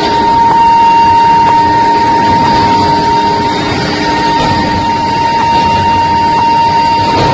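Induction billet heating furnace running: a steady high-pitched whine from the induction coil over loud factory noise, with faint ticks about once a second.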